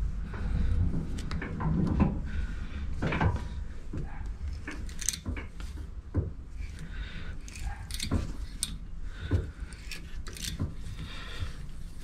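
Cutting a thread by hand with a tap wrench in a metal rod held in a stopped lathe chuck: irregular clicks, knocks and metal scraping as the wrench is turned and worked back and forth.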